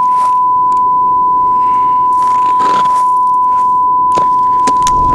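A single steady high-pitched tone held without change, over faint muffled knocks and hiss. It is the ear-ringing sound effect used in action films to stand for being deafened by a nearby explosion, here just after an RPG blast.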